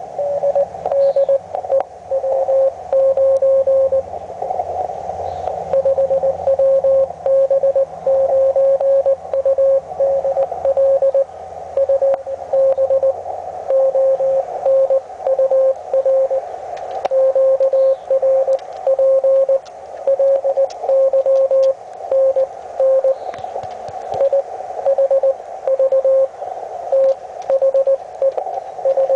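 Morse code (CW) from a Hendricks PFR-3A QRP transceiver: a single steady mid-pitched tone keyed on and off in dots and dashes, over a narrow band of receiver hiss.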